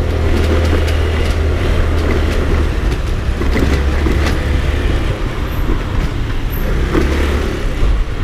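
Small motor scooter under way on a street: its engine runs steadily over road noise, with a strong low rumble.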